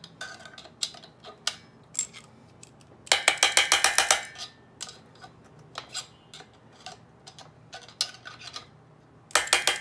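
Metal tools clinking and tapping on the centrifugal clutch of a small two-stroke engine, with a screwdriver braced against it and knocked to loosen the clutch. Scattered single clicks, with a quick run of about eight strikes in a second around the middle and another short run near the end.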